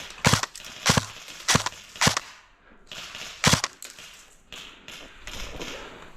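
Airsoft gun firing single shots: four sharp cracks about half a second apart, then one more after a pause of about a second and a half.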